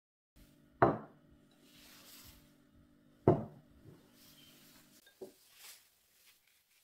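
Two sharp knocks of ceramic tableware set down on a wooden table, about two and a half seconds apart, each with a brief ring, over a steady low hum. A few fainter clicks follow near the end.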